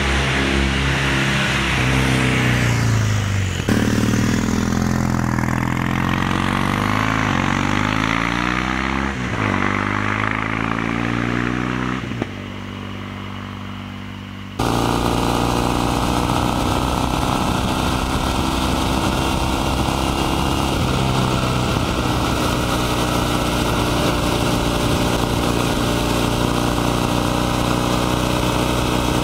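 Kawasaki W800 Cafe's air-cooled 360° vertical-twin engine and exhaust. It rides past with its pitch dropping, then its revs rise and fall as it pulls away, quieter for a couple of seconds. About halfway through, it switches to a close, steady running note heard beside the engine and exhaust while riding.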